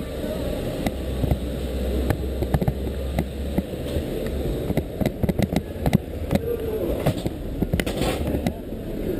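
Wind rumble and handling noise on a camera carried through a street crowd: muffled low rumble with irregular sharp clicks and knocks, more frequent from about five seconds in.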